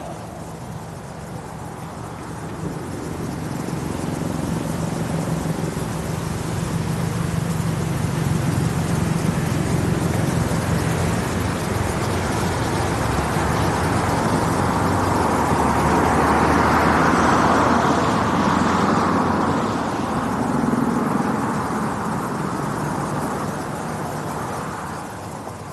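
A passing engine: a continuous rumble that slowly builds, peaks about two thirds of the way through, and fades away again, with no separate blasts or bangs.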